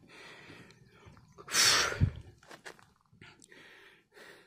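Heavy, panting breaths of a hiker climbing steep stone steps close to the microphone, with one loud puff about a second and a half in and a thump just after it.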